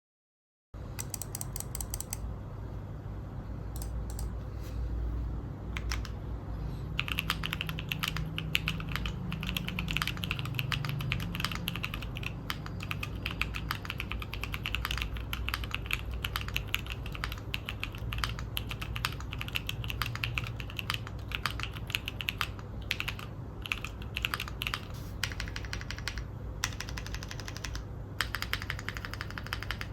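Neo65 custom mechanical keyboard with PBT keycaps being typed on, a dense, rapid stream of key strokes that starts just under a second in.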